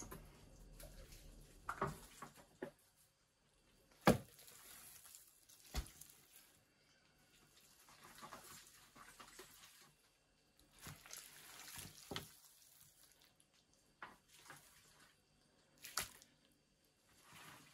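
Gloved hands handling pieces of raw muscovy duck and setting them down on a wooden board: soft wet squishing and rustling, broken by sharp knocks every few seconds, the loudest about four seconds in.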